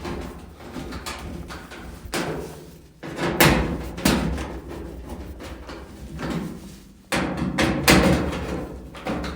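Several sudden knocks and clatters from a Whirlpool dryer's panel being fitted back and its screws tightened, spaced a second or more apart.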